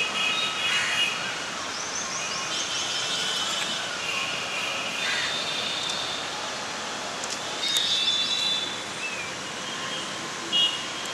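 Small birds calling from the trees: a series of short, high trilled chirps at varying pitches over steady outdoor hiss, with one louder call near the end.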